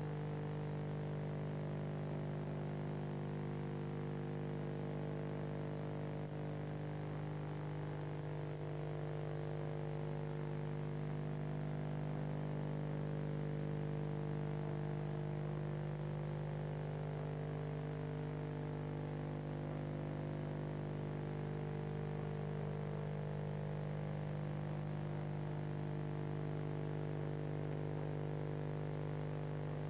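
Steady electrical hum: one low buzzing tone with several higher tones above it, unchanging throughout, with no wheel clatter or other events.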